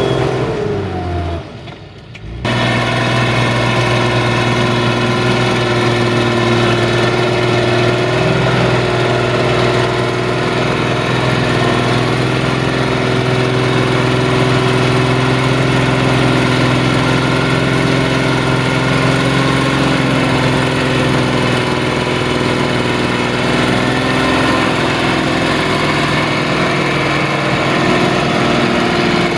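Fiat DT tractor's diesel engine working steadily under load while pulling a plough through heavy wet soil. Its note falls and the sound drops away briefly about two seconds in, then runs on at a steady pitch.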